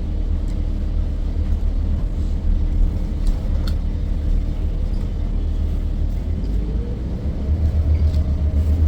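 Bus engine and road rumble heard from inside the bus cabin, a steady low drone that grows louder near the end.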